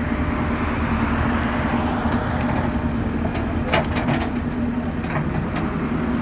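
JCB excavator's diesel engine running steadily under work, with a strong low hum, and several sharp knocks in the second half.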